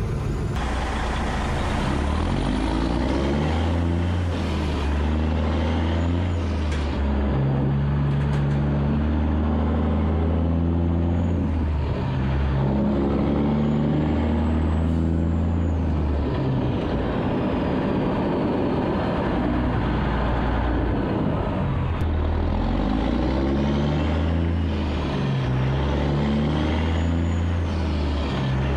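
Semi truck's diesel engine running under way, heard close by its exhaust stack. The engine note moves up and down in steps several times as the truck changes speed and gear.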